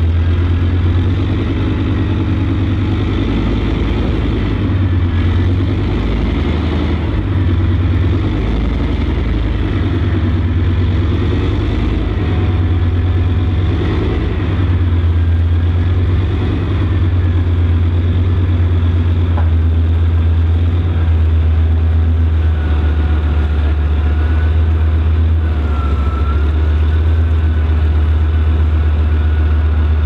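Boat engines pushing a floating ribbon-bridge raft across water, running as a steady, loud low drone, with a faint wavering high whine over it.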